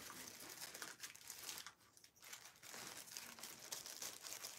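Faint crinkling and rustling of plastic packaging and a paper sheet being handled, in short irregular crackles.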